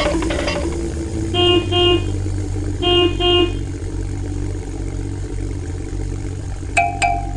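A vehicle horn beeps twice, pauses, then beeps twice again over a steady low engine rumble. A shorter, higher beep with a couple of clicks comes near the end.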